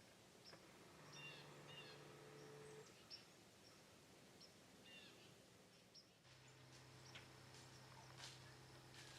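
Near silence in woodland, with a few faint, short bird chirps in the first half and some faint clicks near the end.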